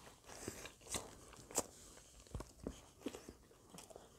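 Close-miked chewing of a mouthful of hamburger: soft, irregular wet mouth clicks and smacks.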